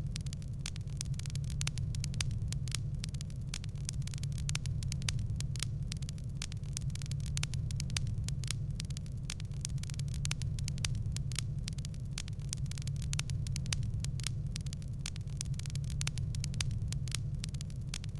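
Wood fire crackling: a dense run of sharp pops and snaps over a steady low rumble.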